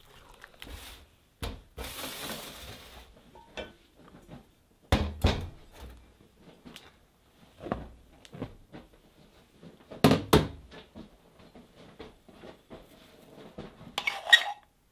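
Kitchen knocks and clinks as dry ingredients are measured into a glass mixing bowl: a glass measuring cup and a metal spoon knock against the bowl and a spice tin, with a short hissing rush about two seconds in and a ringing clink near the end.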